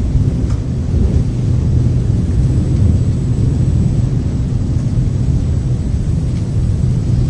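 Steady, loud, deep rumbling noise with no clear pitch, with a faint high whine and a few faint clicks over it.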